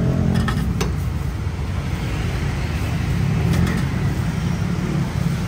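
Road traffic at a street stall: a steady low engine rumble from passing or idling vehicles, with a few short clicks in the first second and one about three and a half seconds in.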